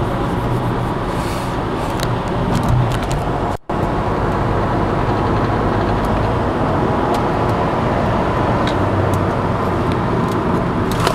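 Steady in-cabin road and engine noise of a Volkswagen cruising in freeway traffic at about 45 mph: a low rumble under tyre hiss. The sound drops out for an instant about three and a half seconds in.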